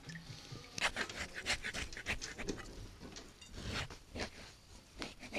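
Knife scraping the sediment off the underside of a cooled beeswax cake: short, rough strokes at an uneven pace, a few a second, starting about a second in.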